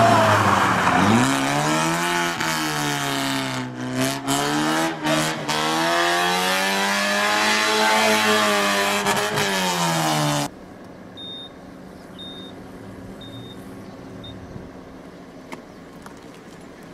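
Fiat Panda's small petrol engine revving up and down as the car drives in tight circles, its pitch rising and falling, with tyre noise beneath. About ten seconds in the sound cuts to a faint low hum with four short high beeps about a second apart.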